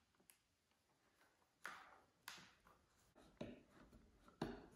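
Faint handling noises: about five short clicks and taps, spread apart, as a hex screwdriver works small screws into the foam tail of a model jet.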